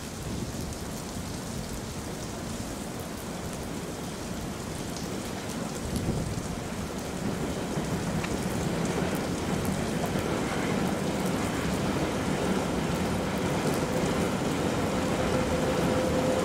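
Steady rain falling, with the rumble of an approaching ET22 electric freight locomotive and its train growing louder throughout. A steady whine from the train comes in near the end.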